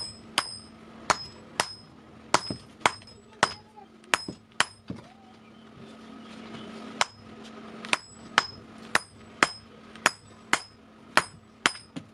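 Hammer blows on steel from an old vehicle axle being forged on an anvil, about two a second, each with a short metallic ring, with a pause of about two seconds midway.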